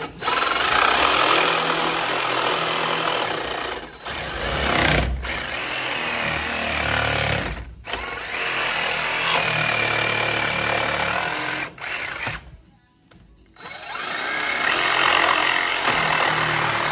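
Electric jigsaw cutting, running in several long stretches with short breaks, stopping for about a second some twelve seconds in, then making one last cut.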